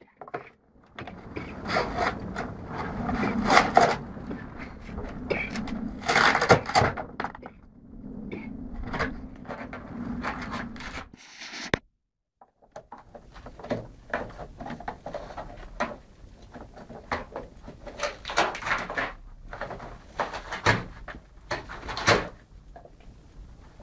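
A setter tearing and chewing a thin cardboard box: irregular ripping and crunching of cardboard, in uneven bursts. The sound breaks off briefly a little after halfway, then goes on.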